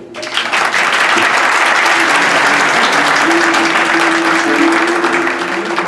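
Audience applause in a hall, breaking out suddenly and loudly, then easing off near the end.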